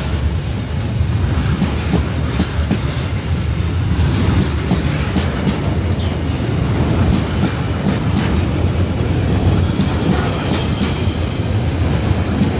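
Coal hopper wagons of a long freight train rolling past close by: a steady low rumble from the wheels, with repeated clicks and knocks as the bogies run over the rail joints.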